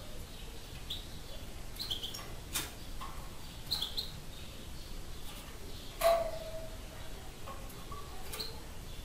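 Wild-caught European goldfinch giving short, high chirps, with a few light clicks of the caged bird moving about. About six seconds in comes a sharp knock with a brief ringing tone, the loudest sound.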